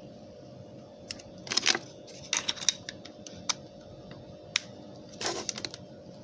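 Plastic clicks and snaps from a basic feature phone being handled as its battery is fitted and its back cover clipped on, coming in several quick clusters.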